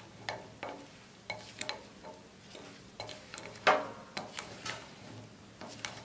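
A spatula scraping and tapping against a glass bowl as chopped strawberries are stirred with sugar and cornflour, in irregular strokes with one louder scrape a little before the middle.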